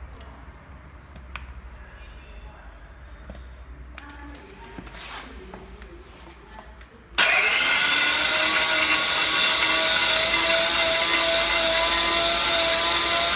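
A few light clicks and handling noises, then about seven seconds in a powder grinder switches on abruptly. Its pitch rises briefly as it spins up, and it then runs loud and steady with a high whine.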